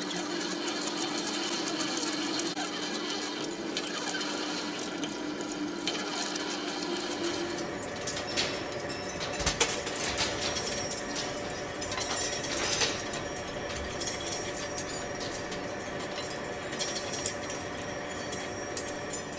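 Industrial machinery running with a steady mechanical hum and scattered clicks and knocks. A low tone in the hum stops partway through.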